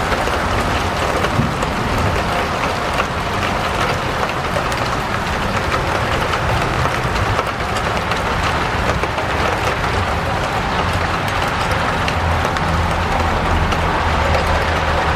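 Steady rainfall, an even hiss with many fine pattering drops. A low rumble swells up underneath about twelve seconds in.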